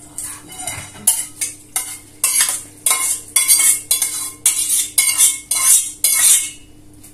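Metal spoon scraping and clinking against metal dishware in quick repeated strokes, about two a second, some with a slight metallic ring, stopping near the end.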